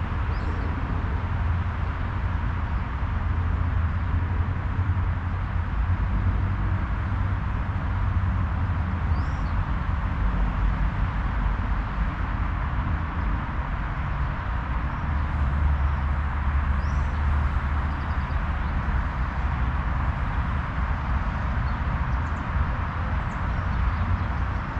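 Steady wind noise with a strong low rumble on the microphone. Now and then a bird gives a short, high chirp.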